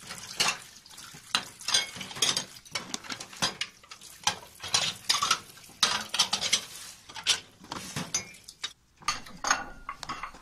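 Plastic toy dishes clattering and knocking in a plastic toy kitchen sink: irregular light clicks and taps as a plate and the toy faucet are handled.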